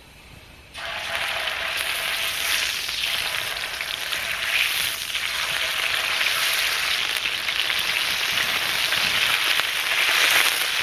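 Steak sizzling in hot olive oil on a Petromax fs56 griddle, the sizzle starting suddenly about a second in as the meat goes onto the plate and then holding steady and loud.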